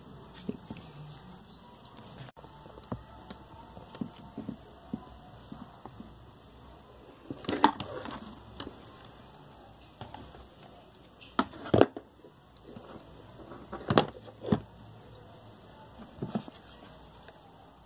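Light clicks and knocks from handling the parts of a disassembled Mallory electric fan motor during repair, with several louder sharp knocks in the second half.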